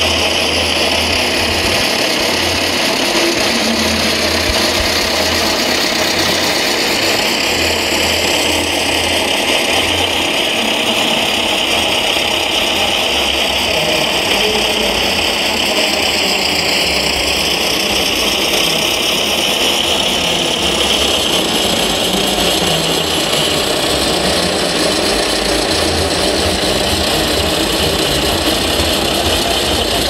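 Scale RC model IFA truck running as it crawls up a dirt slope: a steady engine drone that does not let up.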